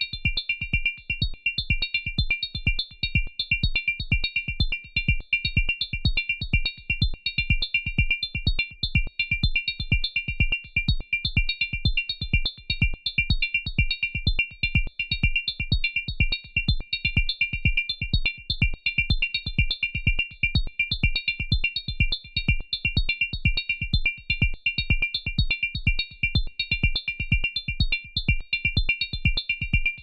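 Dave Smith Evolver synthesizer playing a sequenced chord patch: a fast, steady run of short repeated chord stabs with a deep low end and a bright upper edge.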